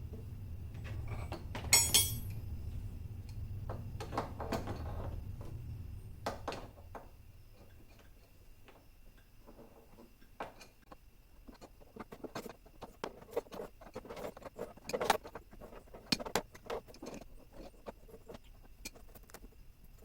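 Hand tools and parts clicking and knocking in irregular, scattered taps, with a sharp metallic clatter about two seconds in, over a low rumble that fades out about six seconds in.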